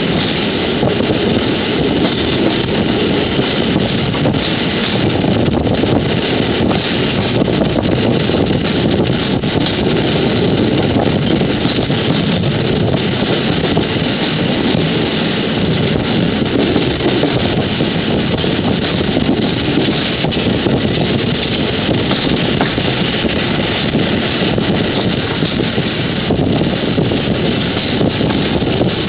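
Steady running noise of a moving train, with wind buffeting the microphone.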